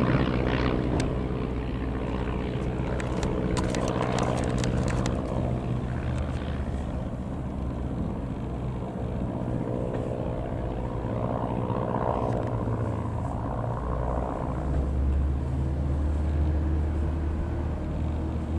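Van's RV-6A light aircraft's single piston engine and propeller droning steadily as the plane flies over.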